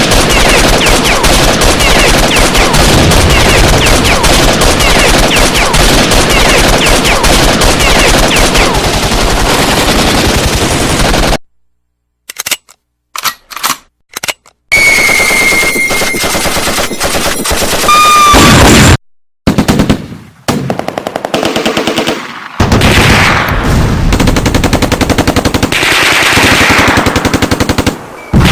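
Machine-gun fire sound effects: about eleven seconds of sustained rapid automatic fire that cuts off suddenly, then a few separate shots and more bursts with a short ringing tone. Sustained automatic fire starts again about two thirds of the way in.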